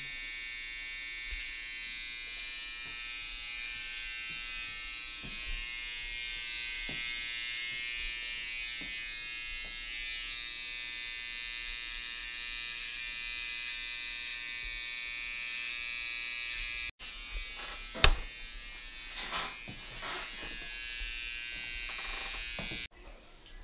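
Handheld electric hair trimmer buzzing steadily as it lines up a beard and hairline. The buzz cuts off abruptly about three quarters of the way through and is followed by a sharp click, then the trimmer buzzes again before cutting off once more near the end.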